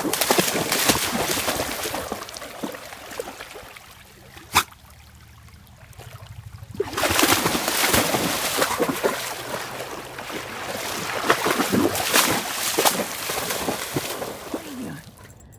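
A dog running and bounding through shallow river water, splashing heavily. The splashing comes in two long spells with a quieter lull between them, broken by a single sharp click.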